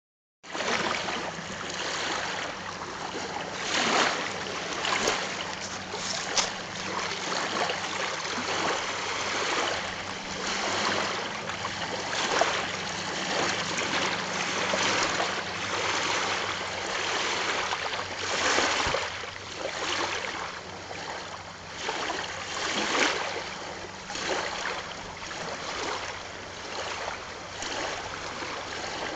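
Small waves lapping and washing onto the stony shore of a loch, surging in every few seconds over a steady rush of choppy water.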